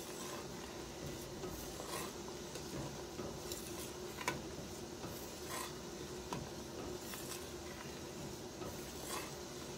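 A metal ladle stirring thick cranberry sauce at a hard boil in a stainless steel stockpot: a steady low background with scattered light clinks and scrapes of the ladle against the pot, about one a second.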